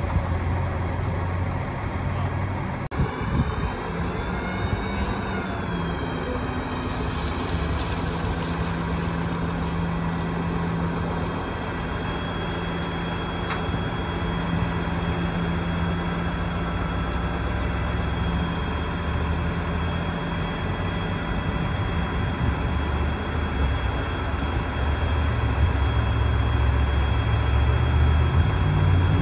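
Cummins ISC 8.3-litre turbo diesel of a 2008 Sterling LT8500 dump truck running steadily while its hydraulic hoist raises the dump bed. There is a click about three seconds in, then a steady high whine from about seven seconds in. Over the last few seconds the engine note gets louder and heavier.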